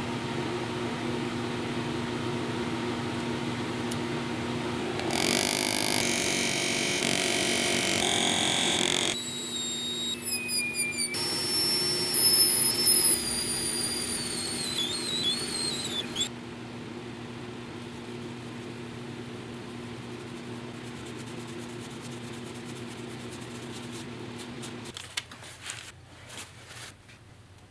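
Electric power tool motor running steadily, with a louder, noisier stretch of work on metal near the middle and high squealing tones that slide down in pitch; the motor stops near the end, followed by a few light clicks.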